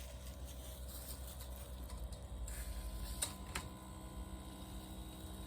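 Low steady electrical hum, with two faint clicks a little past three seconds in.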